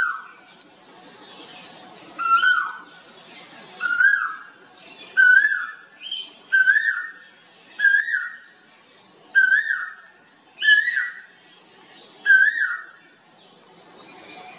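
Male Asian koel singing: a series of about nine repeated whistled notes, one roughly every second and a half, each pitched a little higher than the one before.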